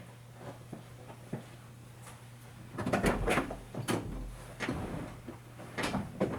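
A series of clicks and clunks, clustered and loudest between about three and four seconds in, over a steady low hum.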